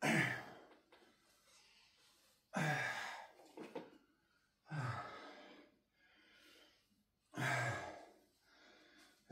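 A man's heavy, voiced exhales, four of them about two to three seconds apart, each fading over about a second: catching his breath after a set of push-ups.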